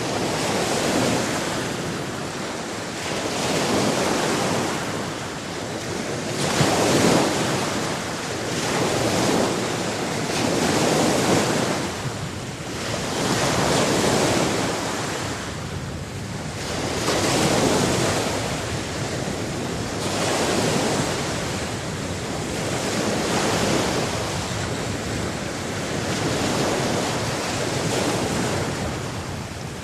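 Sea waves surging on a shore in an unbroken rush of water noise that swells and falls back every two to three seconds.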